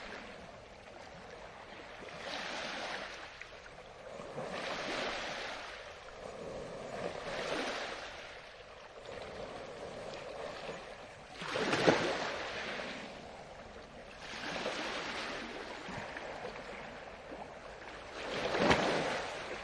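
Ocean waves washing onto a shore, a wash of surf that swells and fades every two to three seconds. Two louder, sharper breaks stand out, one just past the middle and one near the end.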